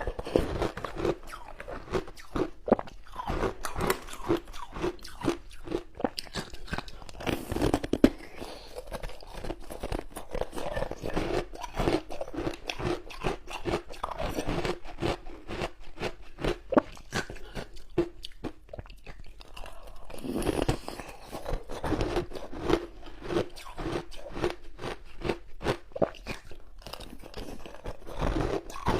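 A person biting and chewing frozen passion-fruit ice close to the microphone: a dense, continuous run of crisp crunches, several a second, with a short lull about two thirds of the way through.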